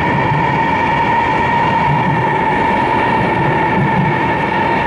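Chinese CRH high-speed electric train running past along the platform as it arrives: a steady rushing rumble with a steady high-pitched whine over it.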